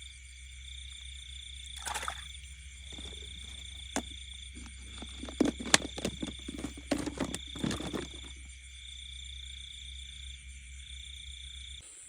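Frogs calling: a steady high-pitched trill that comes in pulses about a second long, over a low hum. Scattered rustles and clicks fall mostly in the middle.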